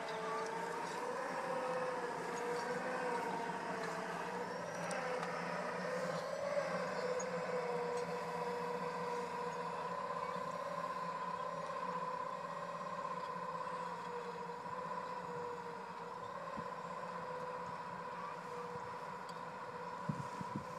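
Electric drive motor of a 1947 Allis-Chalmers G tractor converted to battery power, running with a steady whine as the tractor drives along the rows. The pitch wavers a little in the first few seconds, then holds, and the whine grows slightly fainter in the second half.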